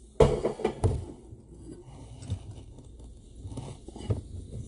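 Handling noises of hard plastic card cases on a tabletop: a sharp knock about a quarter second in, a second one near the one-second mark, then light clicks and rustles as the cases are moved.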